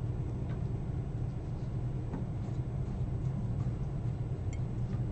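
Steady low background rumble, with a few faint light clicks as small clay and resin pieces are handled and pressed onto a foam-clay mug topper.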